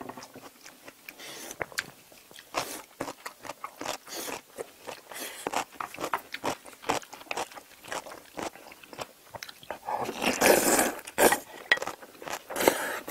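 Close-up crunching and wet chewing of kkakdugi (cubed radish kimchi), in short irregular bites, then loud slurping of jjajang noodles near the end.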